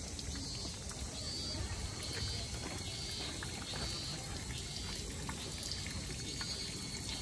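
Water trickling from a bamboo hand-washing pipe, running over a hand. A faint high-pitched call repeats about once a second behind it.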